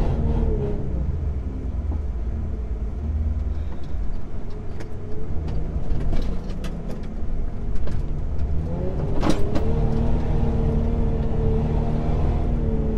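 Mitsubishi Pajero 4x4 engine running under load while driving over soft sand dunes, heard from inside the cabin as a steady low drone. The revs climb about nine seconds in, and a few short knocks from the body or load are heard along the way.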